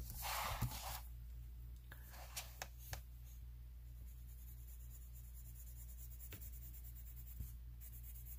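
A coloring book's page sliding and rustling on the table as it is turned, a few light taps, then faint coloured pencil strokes on paper. A low, steady hum runs underneath.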